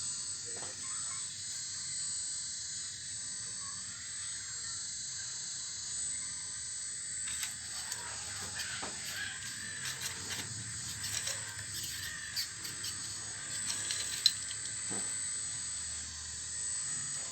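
Full-metal RC excavator working: a steady high hiss and whine, with small clicks and scrapes of stones from about seven seconds in and one sharp knock about fourteen seconds in.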